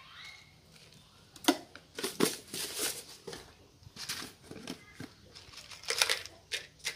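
Handling noise of plastic seasoning jars and a spoon: a sharp click about a second and a half in, then bunches of clicks and crinkly rustles as lids are twisted and pulled off and granules are scooped and sprinkled onto leaves.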